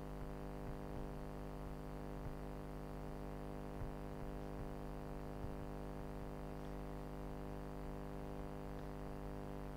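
Steady electrical hum with many evenly spaced overtones, a mains-type buzz in the recording. A few faint ticks turn up now and then.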